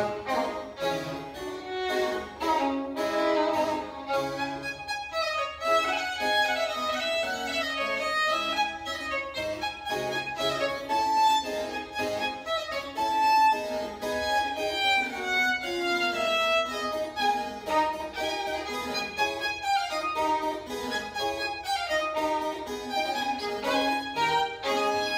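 Baroque violin and harpsichord playing a baroque sonata together: the bowed violin carries the melody in moving runs over the harpsichord's plucked accompaniment.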